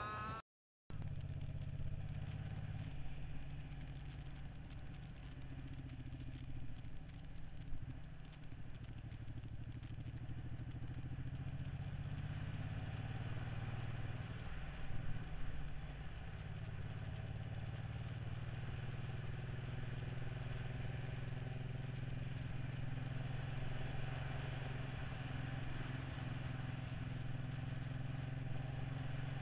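Suzuki Boulevard cruiser motorcycle riding at a steady speed on a dirt road, its engine humming under wind and road noise on the handlebar camera. The sound starts about a second in, with brief louder knocks around eight and fifteen seconds in.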